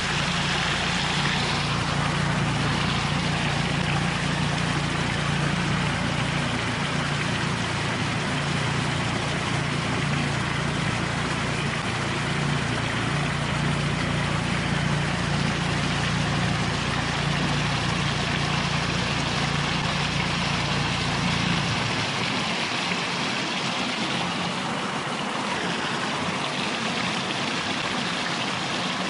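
Water pouring over a low concrete spillway weir into a churning pool, a steady rushing sound; its low rumble drops away about three-quarters of the way through.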